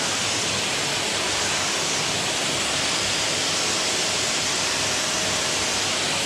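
Vacuum cleaner running steadily: an even rushing hiss, with a faint steady tone underneath.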